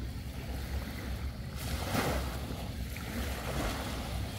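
Wind rumbling on the microphone over the hiss of small sea waves washing on the shore, with a louder wash about two seconds in.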